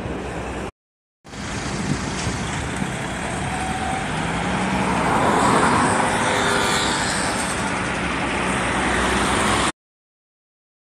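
Street traffic, with a car passing close on the road and at its loudest about five to six seconds in. The sound drops out briefly just before one second in and cuts off near the end.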